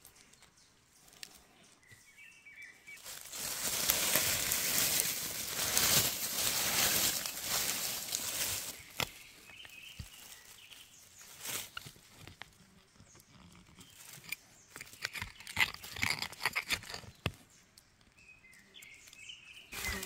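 Forest soil and dry leaf litter being dug and scraped by hand with a small digging tool: a crunching, rustling scrape, loudest for several seconds early on, then scattered crackles and clicks.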